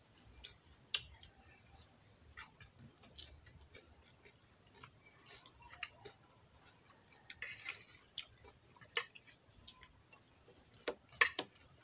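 Metal spoons and forks clicking and scraping against a shared plate and a plastic bowl at irregular intervals, with a short scrape about two-thirds through and a few louder clinks near the end.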